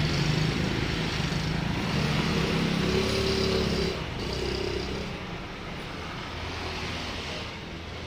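A motor vehicle engine running with a steady low hum amid traffic noise, growing quieter about four seconds in.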